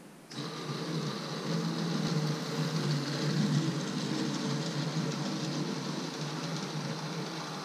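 Small electric motor of a Lego monorail train whirring as the train runs along the geared monorail track, starting suddenly a moment in and then running steadily.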